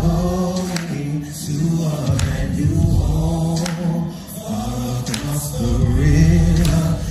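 A small vocal group singing together in harmony, holding long notes, their voices amplified through handheld microphones.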